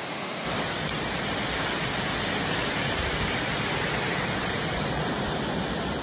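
Steady, even rushing of a waterfall's falling water.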